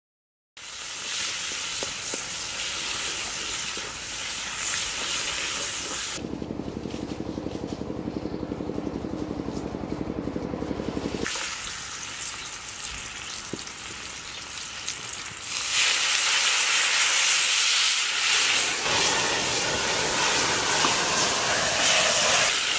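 Hot oil sizzling and frying in a karahi over a wood fire, a steady hiss. For a few seconds in the middle it gives way to a low, pulsing rumble, and the sizzle comes back louder in the last third.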